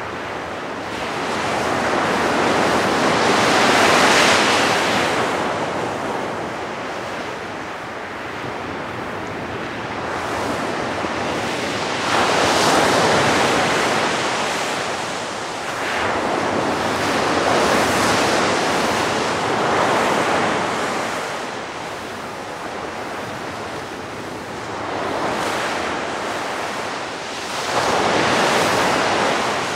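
Waves washing onto the beach, the noise swelling and fading every few seconds, with some wind.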